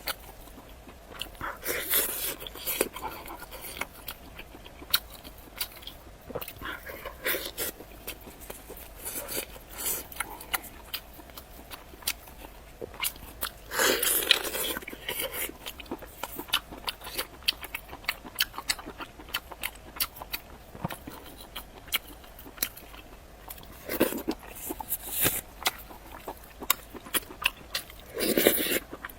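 Close-miked eating sounds: a person biting and chewing braised pork knuckle with rice, with many short wet mouth clicks. A few louder bites or chewing bursts come about 2, 14, 24 and 28 seconds in.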